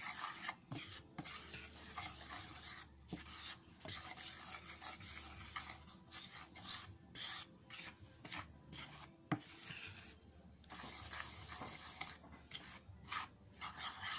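A spoon stirring dry flour and chopped onion in a bowl makes irregular scraping, rasping strokes. A few light knocks of the spoon against the bowl come through.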